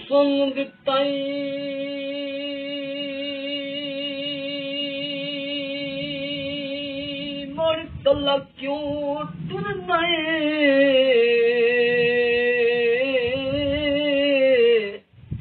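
A man singing dohray mahiye, Punjabi folk couplets, without accompaniment. He holds a long high note with a wavering vibrato, sings a few short words about halfway through, then holds a second, louder note that bends and slides downward near the end.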